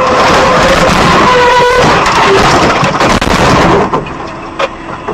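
A vehicle horn sounding over loud, harsh dashcam noise during a close head-on pass, the noise dropping away about four seconds in.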